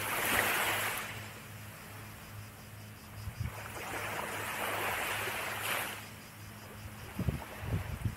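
Small waves washing onto a sandy shore, the rush of water swelling and fading twice, at the start and again a few seconds in. A faint steady low hum runs underneath, with a few low bumps near the end.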